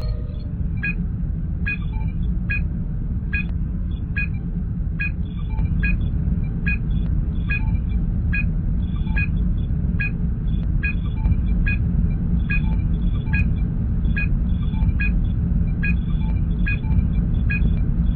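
Star Trek starship ambience sound effect: a steady low engine hum with a short, high computer chirp repeating evenly, a little more than once a second.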